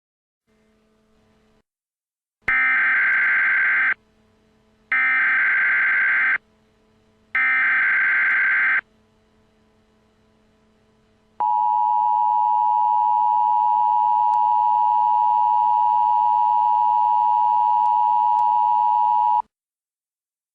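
Emergency Alert System SAME header: three short bursts of digital data tones, about a second apart. These are followed by the EAS attention signal, a steady two-tone sound (853 and 960 Hz) held for about eight seconds, which marks the start of an emergency alert broadcast.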